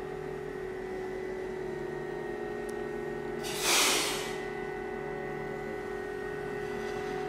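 Steady machinery hum of heavy-lift equipment holding a suspended load, with several tones held level. About three and a half seconds in, a short, loud burst of hiss rises and fades within a second.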